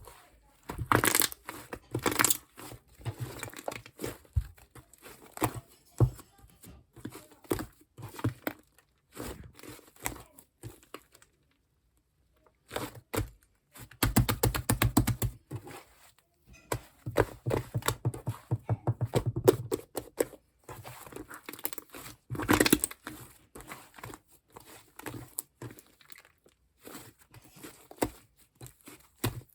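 Shaving-foam slime being squished and stretched by hand, giving runs of quick crackling clicks and pops, with a short pause about halfway.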